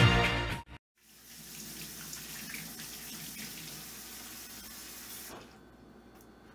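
Background music cuts off within the first second. Then a kitchen faucet runs steadily into a stainless steel sink during handwashing and is shut off about five seconds in.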